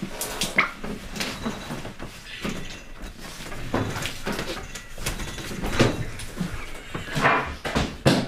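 A struggle and fall: irregular knocks, bumps and rustling, with short strained vocal sounds, loudest near the end as a body goes down onto the floor.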